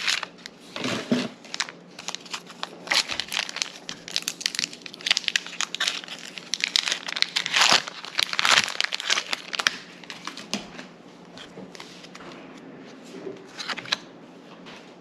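Foil Pokémon booster pack wrapper crinkling and tearing as it is handled and opened, in a dense run of irregular crackles that thins out about two-thirds of the way through.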